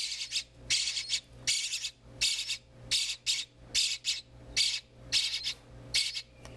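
A brood of European starling nestlings giving harsh, raspy begging calls in a steady run, about two to three a second.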